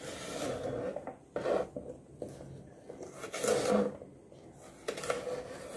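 Small kitchen knife slicing okra pods lengthwise on a plastic cutting board: soft rasping and scraping of the blade through the pods, with a light tap of the knife on the board about five seconds in.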